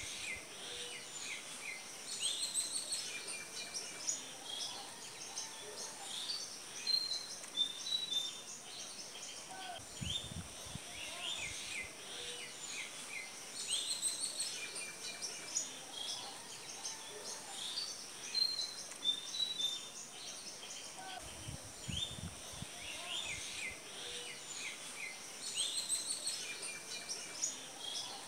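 Several birds chirping and calling in short, high repeated notes and trills, over a thin steady high-pitched tone, with two brief low rumbles about ten seconds in and again near twenty-two seconds.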